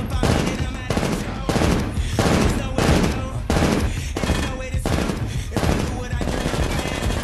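A rifle fires in rapid succession, about two shots a second, each shot overlapping the echo of the last. The firing stops near the end.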